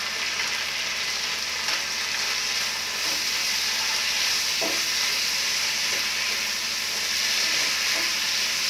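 Onions and green capsicum sizzling in hot oil in a wok over a high gas flame: a steady frying hiss, with a few short scrapes and knocks as the vegetables are stirred.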